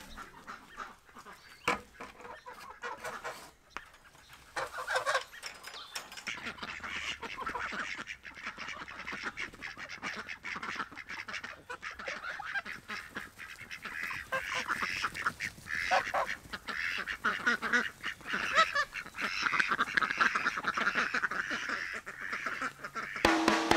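A flock of farm ducks and other waterfowl calling in a dense, overlapping run of quacks and honks. It is faint at first and grows louder from about four seconds in.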